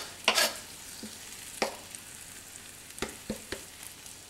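A knife scraping diced garlic off a cutting board into a cast iron skillet, one strong scrape just after the start, then a few light taps and clicks. Under it, a faint steady sizzle from Brussels sprouts cooking in butter.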